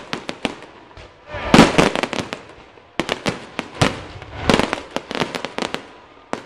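Fireworks display: rapid clusters of aerial shell bangs and crackling reports, the loudest cluster about a second and a half in.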